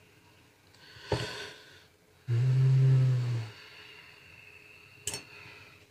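Sharp clicks of small hand tools on a metal work surface about a second in and again near the end. Between them comes a louder low steady hum lasting about a second.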